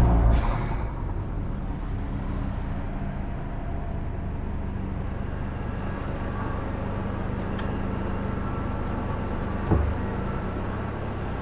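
Suzuki Swift Sport ZC33S's 1.4-litre K14C turbo engine with an HKS Hi-Power SPEC-L exhaust, heard inside the cabin. The loud run dies away within the first second, with a brief sharp crack at the start, then the engine runs at low revs with a steady low drone as the car rolls slowly. A single low thump comes near the end.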